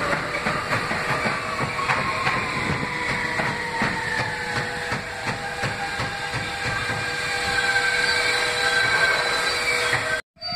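New York City subway train running away into a tunnel: steady wheel-on-rail rumble with quick clicks over the rail joints and an electric whine that slowly falls in pitch. The sound cuts off suddenly near the end.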